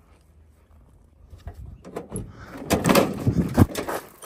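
Rusty steel cab door of an old pickup truck being unlatched and pulled open: a few clicks from the latch, then a clattering burst of knocks and rattles as the door swings open.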